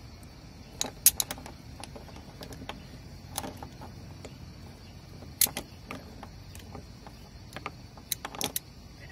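Steel snap links clicking and clinking as they are handled and clipped on a rope anchor. There are a few sharp clicks, grouped about a second in, near three and a half seconds, near five and a half seconds and near the end.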